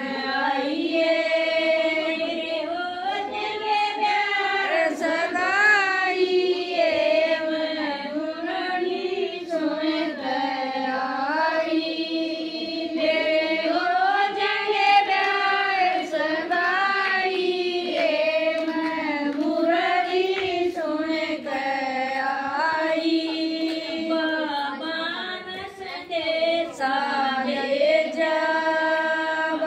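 A woman singing a Hindu devotional bhajan, one voice carrying a continuous wavering melody.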